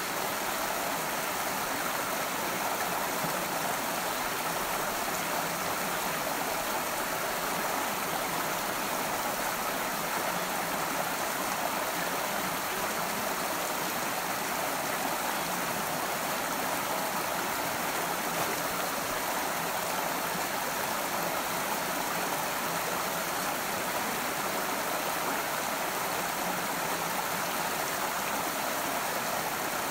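A creek running over rocks, a steady, unbroken rush of flowing water.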